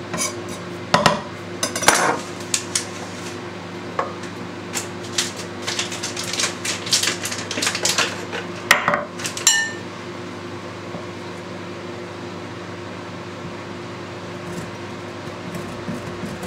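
A kitchen knife tapping and scraping on a wooden chopping board, with clinks as a glass bowl and a metal grater are set down on it. The clatter stops about ten seconds in, leaving a steady low hum that runs under it throughout.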